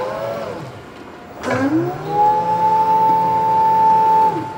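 Jungheinrich reach truck's electric hydraulic pump motor whining as the reach mast travels. A whine dies away at the very start. About a second and a half in, another rises in pitch, holds steady for about two seconds, and falls away near the end.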